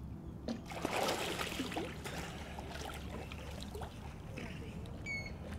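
Swimming-pool water sloshing and splashing as people move through it, with a fuller swell of splashing about a second in. A short high beep sounds near the end.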